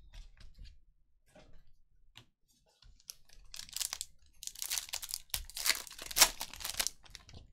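Foil wrapper of a trading-card pack being crinkled and torn open by hand, crackling on and off from about three seconds in and loudest near the end.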